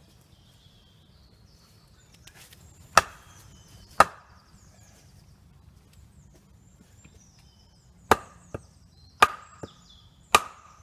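Wood being chopped with a blade: five hard, sharp blows at uneven intervals, with a couple of lighter knocks between the later ones.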